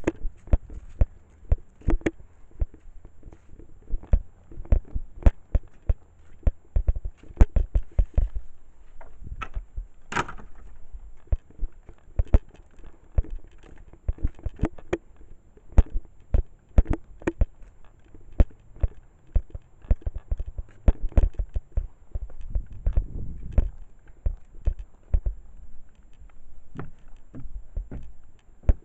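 Footsteps of someone walking outdoors, a quick, uneven run of knocks throughout, with wind rumbling on the microphone.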